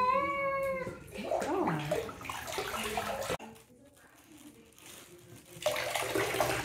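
Water being poured from a glass cup over a wet cat in a bathtub, splashing into the tub near the end. At the very start, the end of a cat's meow, followed by water sloshing in the tub.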